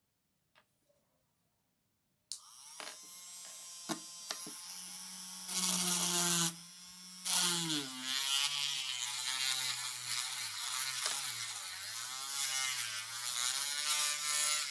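Small 12-volt DC motor of a homemade drill switched on about two seconds in, running with a steady buzzing whine. Its pitch drops and wavers through the second half.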